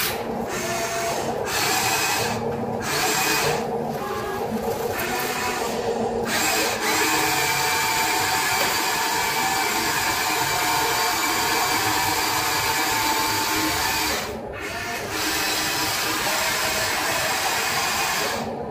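Electric gear motors of a Huina RC model excavator whining as the machine works. The whine starts and stops several times in the first six seconds, then runs steadily with a short break about fourteen and a half seconds in.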